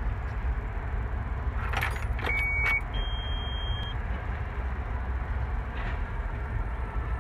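Cat C Series excavator's diesel engine running with a steady low rumble. A few clicks come about two seconds in, followed by two short electronic beeps, the second higher and longer.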